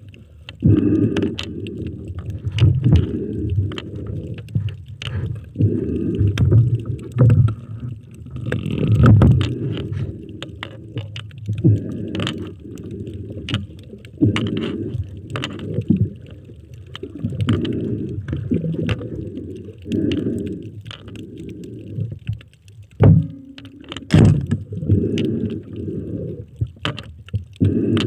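Muffled underwater rushing and swishing of water against the camera as a diver swims, in uneven surges about once a second, with scattered sharp clicks and knocks.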